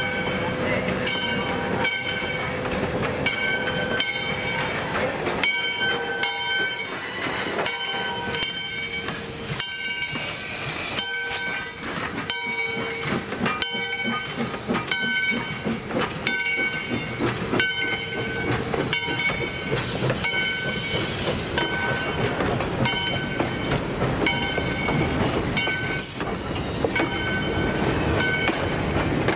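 Steam locomotive bell ringing at a steady pace, about one strike a second, as a 2-8-2 Mikado steam locomotive and its passenger coaches roll slowly past, the wheels rumbling and clacking on the rails.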